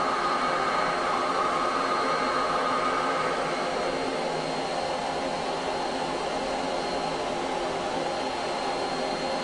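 Vacuum cleaner running steadily, an even whooshing whine with a thin high tone over it, sucking air through its hose; it turns slightly quieter and duller about four seconds in, as the hose is lowered.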